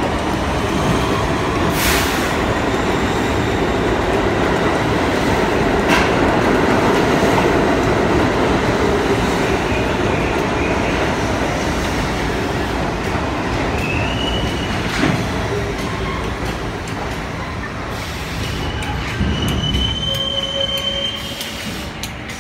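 R32 subway train pulling into an underground station, its wheels and cars running loudly past with a few sharp clicks. Brief high squeals come in the second half as it slows, and the noise eases off near the end.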